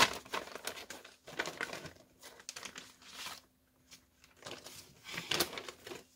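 Clear plastic bag crinkling and rustling in irregular bursts as it is handled.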